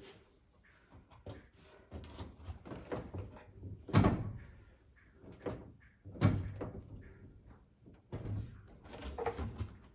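Work on a front-loading washing machine's door seal: irregular knocks, thumps and handling noise. The loudest thump comes about four seconds in, with another just after six seconds.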